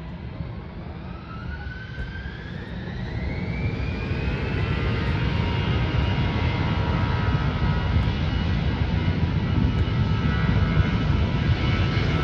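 Jet airliner engines growing louder, with a whine that rises in pitch over the first few seconds, then running at a steady loud level with a dense, even noise.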